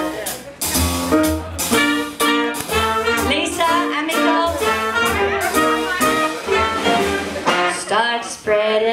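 Swing jazz band playing with a woman singing lead, over upright bass, drums and saxophone, with a steady beat.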